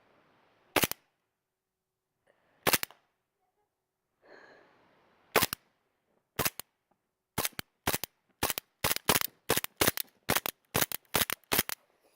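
Air pistol firing: a few single shots seconds apart, then about fifteen quick shots in a row, roughly three a second, emptying its magazine.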